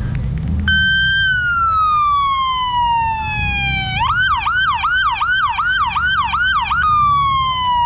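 An emergency vehicle's electronic siren comes on about a second in with a slow falling wail. It switches to a fast yelp of about two to three cycles a second, then goes back to the slow wail. A low rumble runs underneath.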